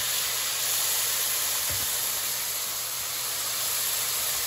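Sliced pears sizzling steadily in hot vegetable oil in a frying pan as they sauté.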